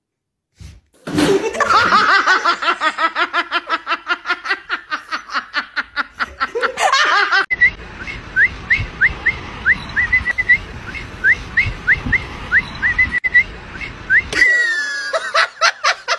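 A person laughing in quick repeated high-pitched pulses that speed up over several seconds. It is followed by a steady hiss with short, sharp, rising chirps that come irregularly.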